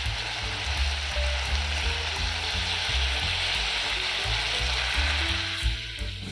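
Steady sizzling hiss from food cooking in a metal pot, with background music under it.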